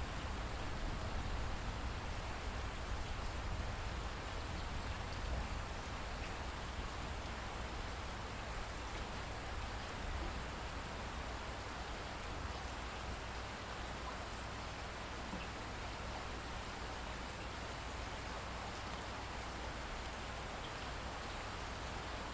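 Steady rainfall, an even hiss with a low rumble underneath that is a little louder at the start and then settles.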